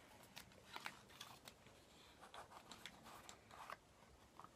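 Faint clicks and scrapes of a small cardboard tarot card box being opened and the cards handled.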